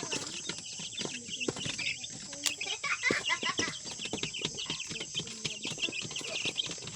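Native chickens clucking and calling, many short calls with scattered clicks, over a steady high hiss.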